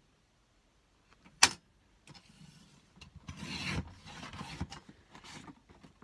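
A single sharp click, then a sliding, scraping rub as a paper trimmer's blade carriage is run along its rail, cutting through a sheet of paper; the rub is loudest for about a second and a half midway.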